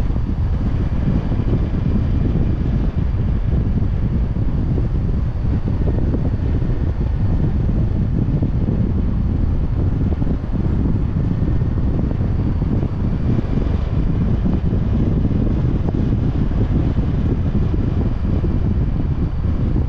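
Wind buffeting the microphone of a car-mounted GoPro while driving: a steady, loud, low rumble.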